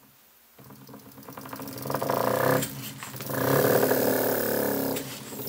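Small oscillating-cylinder (wobbler) model engine running on compressed air from a bicycle pump, after being flicked into motion by hand. It makes a rapid, buzzy stream of puffs and ticks that builds over the first couple of seconds, then swells and eases in two surges.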